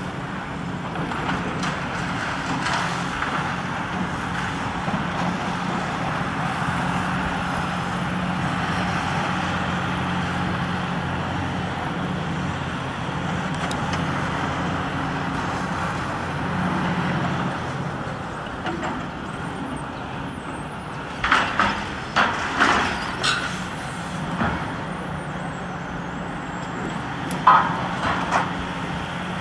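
CAT tracked excavator's diesel engine running steadily. A cluster of sharp metal clanks and crashes comes about two-thirds of the way through, and another near the end, as its demolition grab handles steel debris.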